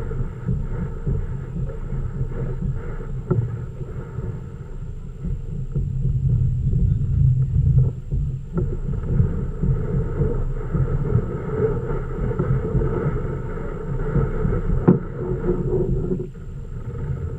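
Muffled rumble of water and wind against a kayak-mounted GoPro in its housing as the kayak moves, with a few light knocks.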